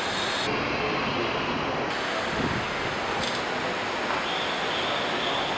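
Steady, even background hiss with no distinct events standing out.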